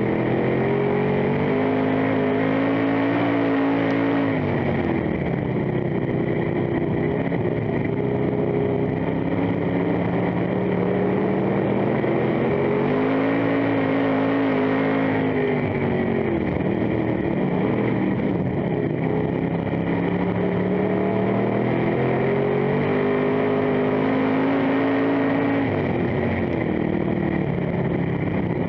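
Dirt-track stock car's engine heard from inside the cockpit at racing speed. It climbs steadily in pitch down each straight and drops off sharply about every ten seconds as the driver lifts for the turns, three times.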